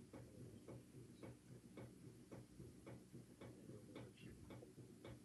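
Faint, regular ticking, about two ticks a second, over a low steady room hum.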